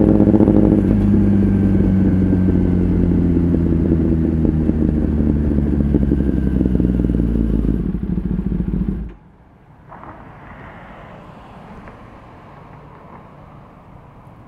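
Kawasaki ZX-10R inline-four engine running at a steady speed through an Akrapovic exhaust, loud, then cutting off abruptly about nine seconds in. After that only a faint steady background hum remains.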